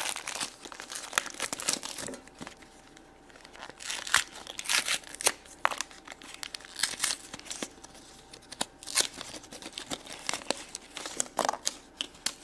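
Packaging of a Shopkins basket surprise crinkling and tearing as it is opened by hand, in irregular bursts of crackling with short pauses between.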